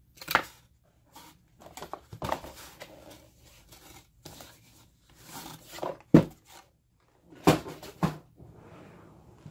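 Cardboard product boxes being handled: scattered knocks, taps and rustles with short quiet gaps, the sharpest knock about six seconds in.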